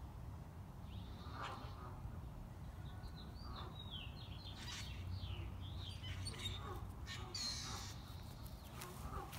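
Birds calling over a low steady background rumble: a harsh call about one and a half seconds in, a run of quick falling chirps in the middle, and more calls near the end.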